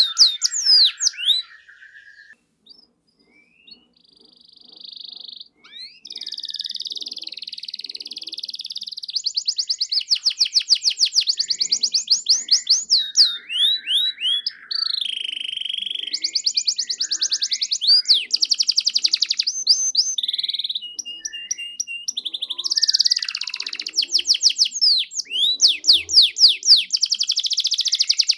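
Domestic canary singing a long, varied song of rapid trills and whistled glides. The song is softer and sparser for a few seconds shortly after the start.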